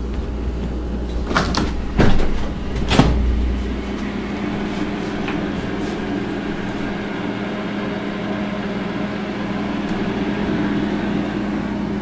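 A few sharp knocks and clicks in the first three seconds, over a steady electrical hum.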